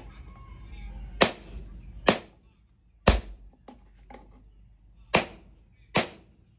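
Hand hammer striking steel on a small stake anvil set in a tree stump. Five sharp blows at uneven spacing, each ringing briefly.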